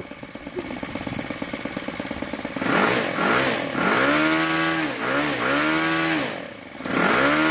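YS FZ63S supercharged glow four-stroke model airplane engine with a propeller, idling with a fine, even ticking, then revved up and down several times from about two and a half seconds in as the throttle is opened and closed.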